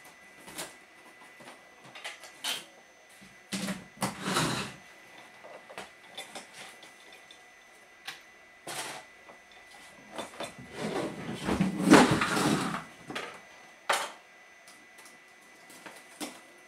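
Someone rummaging through workshop boxes and parts: scattered clicks, knocks and rustling, with a longer, louder clatter about eleven to thirteen seconds in.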